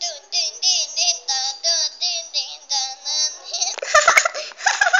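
A squeaky, very high-pitched voice talking in a sing-song way, its pitch gliding up and down. About four seconds in, louder, busier voices break in.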